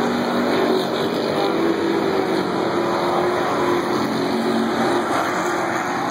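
Engines of a field of dirt-track stock cars running as they circle the oval, a steady loud drone with a held engine tone.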